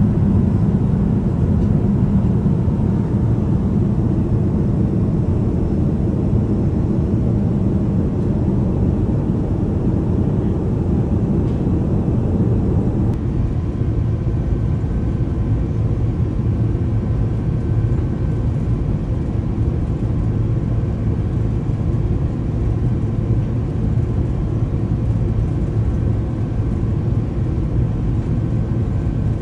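Steady airliner cabin rumble inside an Airbus A350, the low drone of engines and airflow heard from the seat, on approach to landing. The mix shifts slightly about 13 seconds in.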